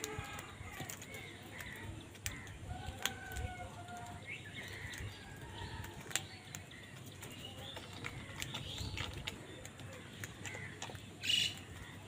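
House crows calling now and then while they feed, with sharp clicks of beaks pecking at grain and the bowl. A louder short burst comes near the end.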